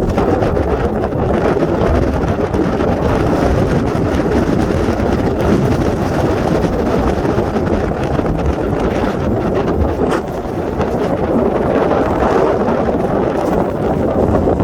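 Steady wind buffeting the microphone, a continuous rumbling roar with no letup.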